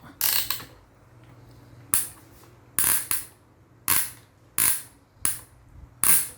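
Hand-turned crank of a die-cast toy crane ratcheting in about seven short clicking bursts, each a quick rasp as the knob is turned.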